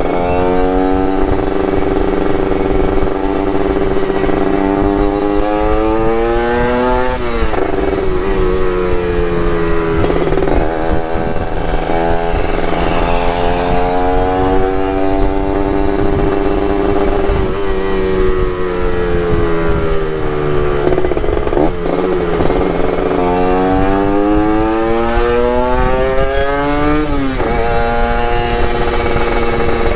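Two-stroke motorcycle engine under way, its pitch climbing as it revs up, dropping sharply at gear changes and sinking as the bike slows, over a steady rush of wind.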